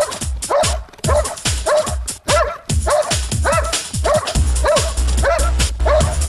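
Dog barking steadily and rhythmically, about two barks a second, at the helper standing in a training blind: the hold-and-bark (guard and bark) of IPO protection work. A low rumble joins under the barks about two-thirds of the way in.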